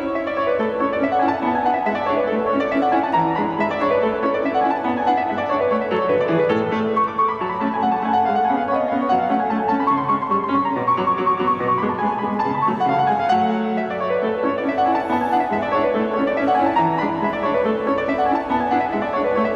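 Background piano music, classical in style, with runs of notes that climb and fall again every few seconds.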